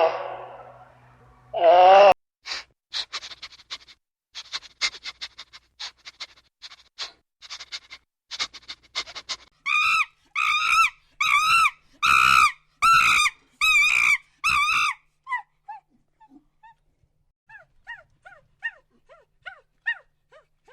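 A small dog yapping, about eight high yaps in quick succession, followed by faint short squeaky whines. A string of clicks and ticks comes before the yaps.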